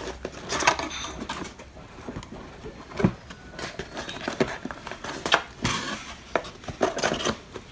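Corrugated cardboard of a laptop shipping box being handled: the inner insert and flaps scraping, rubbing and knocking together in irregular bursts, with a few sharper knocks.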